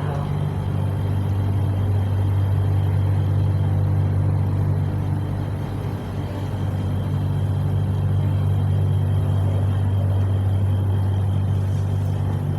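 Steady low motor hum that holds one pitch, with an even rushing noise over it. The level dips briefly about six seconds in.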